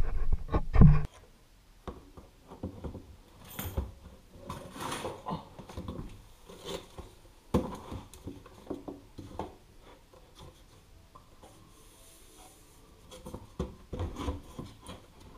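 SMEG 70 cm canopy extractor being pushed and shifted up into its wooden surround for a snug dry fit: scattered knocks, scrapes and rubs of metal against wood. A cluster of louder low knocks comes in the first second.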